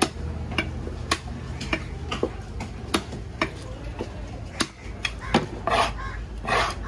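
Long knife chopping fish on a round wooden log chopping block: sharp knocks of the blade into the wood, about two a second and not quite even. Near the end come two short, loud, rasping noises.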